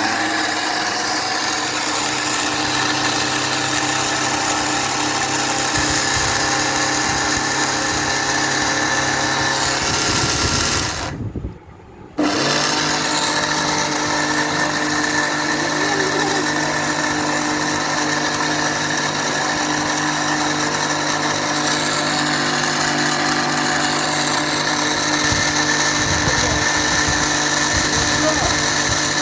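Panasonic MX-AC555 1000-watt mixer grinder running steadily, its blades grinding dry cumin seeds into powder. The motor cuts out for about a second a little before halfway, then starts again and runs on.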